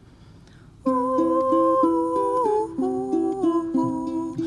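A short pause, then about a second in an acoustic trio starts the song's intro: plucked acoustic guitar, a smaller plucked string instrument and upright bass, with a held melody line above them that slides down partway through.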